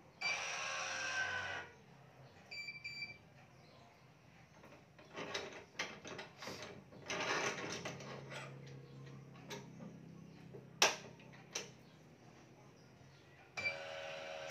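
Electronic tension head of a digital badminton stringing machine running as it pulls BG66 string to a 29 lb tension, twice, once at the start and again near the end, with a short beep soon after the first pull. In between, the string rasps as it is threaded through the racket and there are a couple of sharp clicks.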